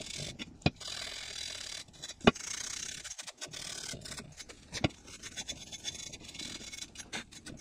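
Scouring pad scrubbing the cast aluminium spokes of a motorcycle wheel, a steady rasping rub broken by three sharp knocks, cleaning the cast metal ready for paint.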